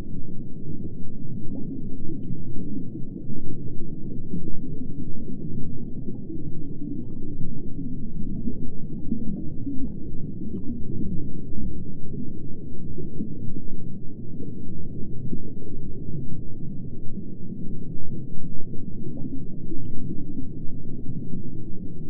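Underwater ambience sound effect: a continuous low, muffled rumbling wash of water with faint scattered bubble ticks.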